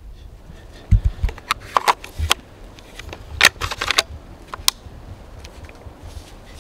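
Handling noise close to the microphone: an irregular run of sharp clicks and rustles, most of it between about one and five seconds in, with a couple of dull thumps near the start of it.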